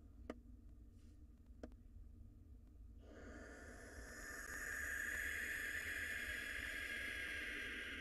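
Barn owl giving a long, harsh threat hiss at an intruding pigeon, starting about three seconds in and lasting about five seconds. Two soft clicks come before it.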